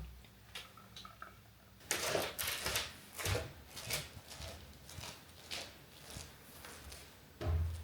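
Rustling and light knocks of things being handled, in short irregular bursts.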